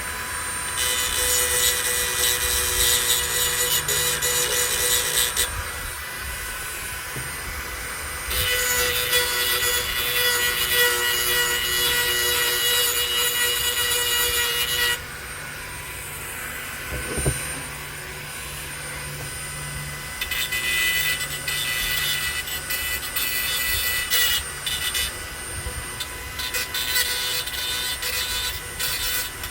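Steel hedge trimmer blade teeth being filed, in rapid rasping strokes. The strokes come in three bouts with short pauses between them.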